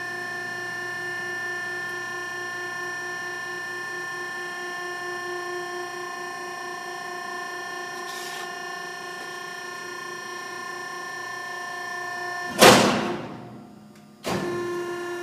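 Fox Hydraulics model 60 vertical baler's electric-driven hydraulic unit running steadily with a whine of several tones while the press moves down in manual mode. About twelve and a half seconds in, a loud sudden rush of noise dies away over a second and a half, and the machine falls nearly quiet. Then the hydraulic whine starts again abruptly as the press reverses to go up.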